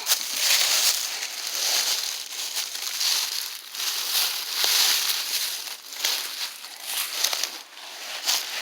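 Footsteps crunching and rustling through dry leaves and forest litter, each step swelling and fading about once a second.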